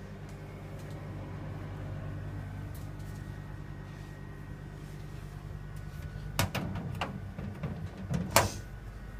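Knocks and clicks of plastic refrigerator shelves and drawers being handled, a cluster starting about six and a half seconds in, the loudest near the end, over a steady low hum.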